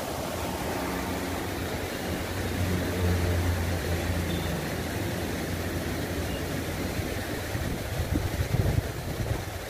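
A motor engine running with a steady low hum, loudest about three seconds in and fading away by about seven seconds, over a steady rush of flowing water.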